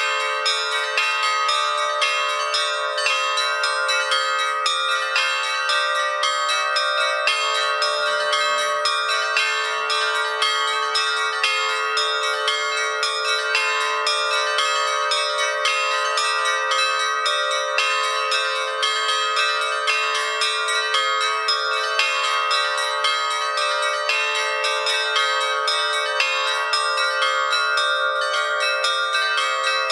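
Bells ringing, struck in quick, continuous succession with many overlapping tones.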